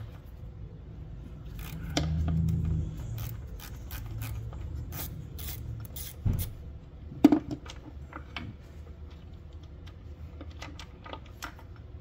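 Hand tools working on screws in an engine bay: irregular metallic clicks, clinks and taps, the sharpest about seven seconds in. A brief low drone sounds about two seconds in.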